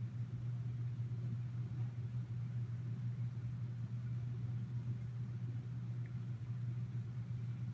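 A steady low hum with a rumble beneath it, even throughout.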